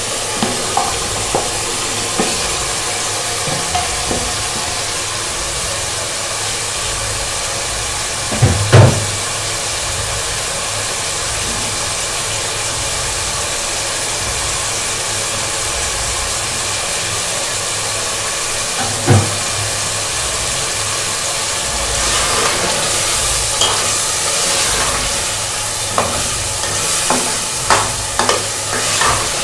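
Chana dal and masala sizzling steadily in hot oil in an aluminium pot as the dal is roasted (bhuna) in the masala. Two loud knocks, one about a third of the way in and one about two thirds in, and from about three quarters in a spoon stirring and scraping the pot with a run of clinks.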